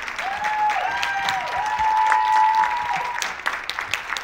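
Audience applauding, with a few long, held vocal whoops over the clapping in the first three seconds.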